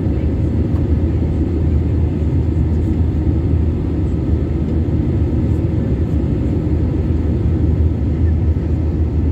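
Steady low cabin noise of a jet airliner in flight: the engines and rushing air, heard from inside the passenger cabin.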